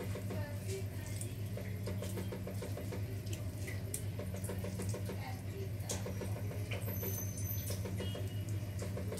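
Steady low electrical hum from an induction cooktop, with faint short runs of quick ticking and a few small clicks as a lemon is squeezed by hand over the pot of curry.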